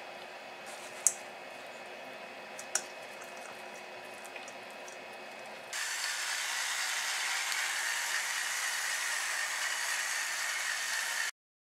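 Salt and pepper mills grinding steadily over a steel mixing bowl for about five seconds, stopping abruptly. Before that, a couple of light clicks of ham and chopsticks against the steel bowl.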